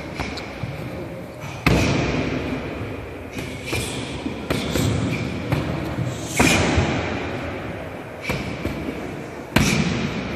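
Kicks landing on a padded kick shield: about seven sharp, irregular slaps and thuds, the loudest about a second and a half in, at about six and a half seconds and near the end, each echoing in a large hall.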